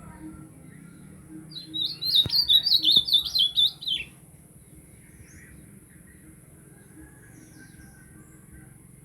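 Great-billed seed-finch (bicudo) singing one fast, warbling phrase of about two seconds, starting a couple of seconds in.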